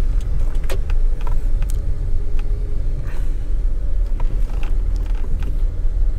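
A car driving in slow, busy traffic: its engine and road noise make a steady low rumble, with scattered small clicks and creaks.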